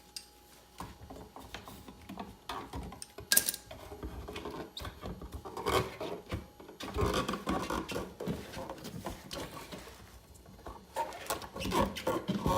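Irregular rubbing, scraping and small clicks of stiff electrical wires being pushed and worked into a tight receptacle box by hand, with a sharp click about three seconds in.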